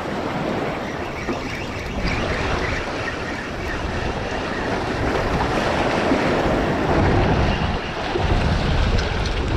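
Gusty wind buffeting the microphone over the steady wash of surf and moving water.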